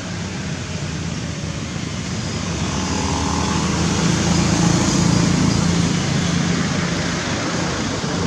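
Steady background noise with a low hum that swells to a peak about halfway through and then eases off, like a motor vehicle passing.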